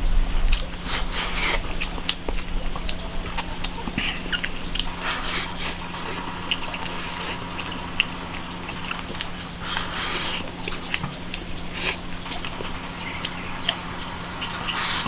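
People eating braised eggplant with pork cracklings: chewing, smacking and slurping mouthfuls, with scattered short clicks and taps. A steady low hum runs underneath.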